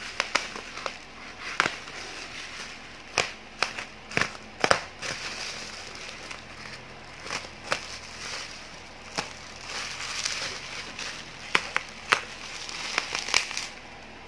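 A plastic bubble-wrap mailer being cut with scissors and torn open by hand: irregular sharp snips and crackles over crinkling plastic.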